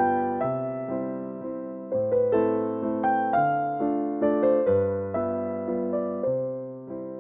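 Background piano music: a gentle melody of notes struck and left to ring over a bass line that changes every second or so.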